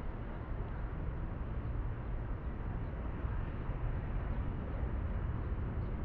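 Steady outdoor city ambience: a low, even rumble with no distinct events.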